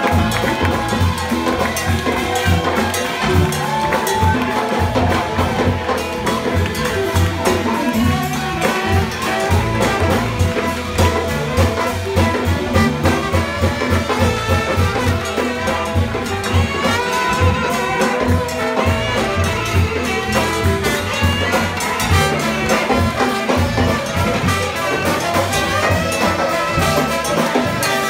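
Live jazz band playing a Latin-tinged tune: tenor saxophone and trombone over upright bass, piano, guitar and drum kit, with cowbell and hand percussion keeping a busy steady rhythm.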